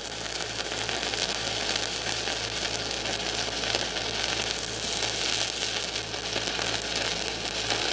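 Stick-welding arc of a 3/32-inch 7018 low-hydrogen electrode at 85 amps, DC electrode positive: a steady, even sizzling crackle from a short arc held close to the plate.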